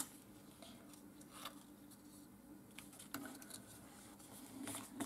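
Faint rustling and light taps of paper card being pressed and shifted by hand on a cutting mat, a few scattered touches over a low steady hum.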